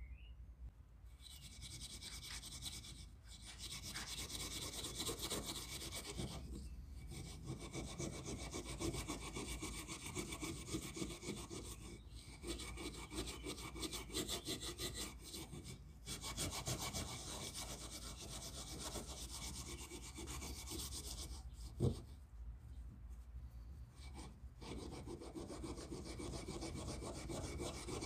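Quick, steady back-and-forth rubbing strokes by hand on a part of an antique Stanley Bailey No. 27 transitional plane during its clean-up. The rubbing comes in runs broken by short pauses, with one sharp knock about 22 seconds in.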